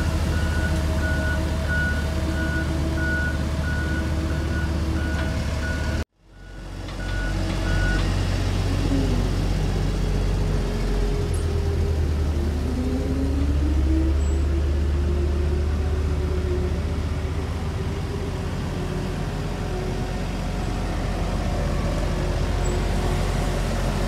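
Diesel engines of asphalt road rollers running steadily, with a reversing alarm beeping evenly for the first several seconds. After a sudden cut, a roller engine's pitch dips and then rises as it works.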